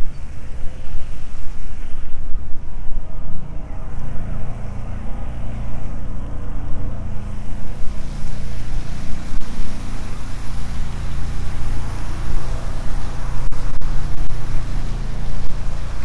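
Wind buffeting the microphone during a walk outdoors, a loud, unsteady low rumble, with a broad hiss that grows stronger about halfway through.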